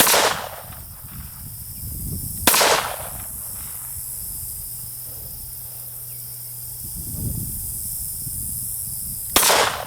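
Three pistol shots at an unhurried pace: one at the very start, another about two and a half seconds later, and a third near the end after a long pause.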